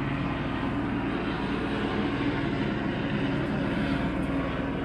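San Diego Police helicopter circling overhead: a steady drone of rotor and engine.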